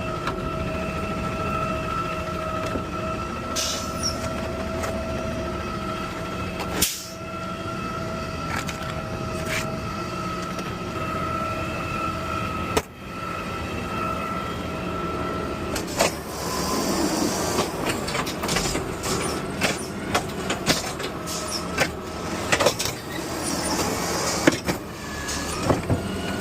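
Automated side-loader garbage truck running with a steady whine, broken off twice. Then, about two-thirds through, a run of knocks and bangs as the arm is worked to shake loose trash stuck in a cart.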